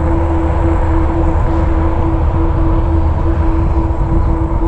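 A RadRover fat-tire electric bike riding along on pavement: a steady low rumble of tyres and wind with a constant hum.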